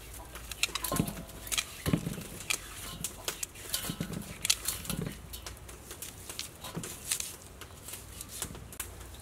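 Whole eels being scrubbed by hand with coarse salt and a scouring pad in a metal bowl: irregular rubbing and scraping with many small clicks and knocks.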